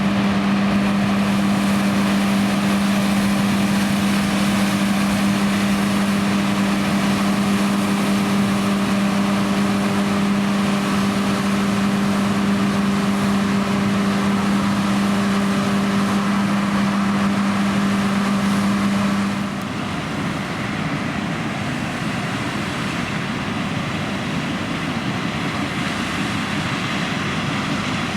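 John Deere X9 1100 combine harvester running steadily while harvesting oilseed rape: a continuous machine drone with a steady hum over it. About two-thirds of the way through the hum drops out and the sound gets slightly quieter, leaving a rough, even machine noise.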